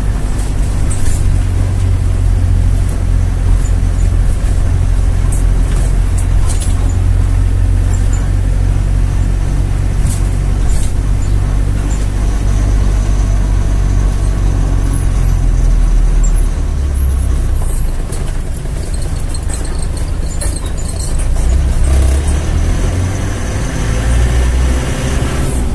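Steady low rumble of a vehicle driving along a road, engine and road noise with occasional light rattles and clicks; the rumble eases a little about two-thirds through.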